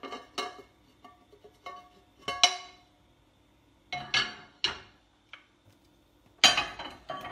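Hinged metal waffle puff pan and utensils clanking and clinking against each other and the stove grate: a string of separate, irregular strikes, each with a short ringing tone. The loudest comes about two and a half seconds in, and another near the end.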